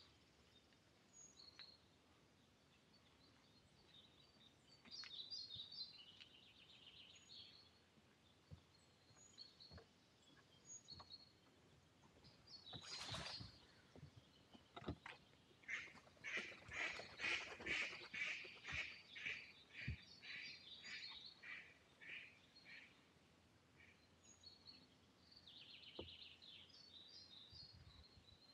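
Faint woodland birdsong, with small birds chirping on and off. In the middle comes a run of loud, evenly repeated call notes, about two a second for several seconds, just after a short noisy burst.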